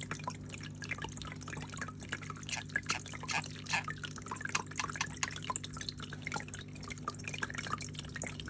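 Flower-shaped pet water fountain running: water trickles and drips in quick, irregular patters over a low, steady pump hum.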